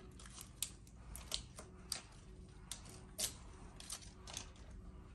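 Backing strip being peeled off double-sided carpet tape: faint, irregular crackles and ticks as the liner comes away.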